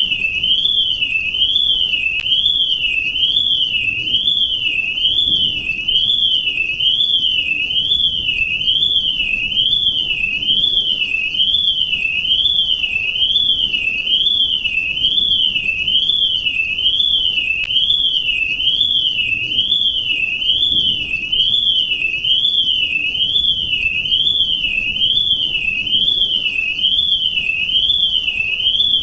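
Electronic alarm tone warbling continuously, its pitch sweeping up and down in a steady, even zigzag more than once a second without a break.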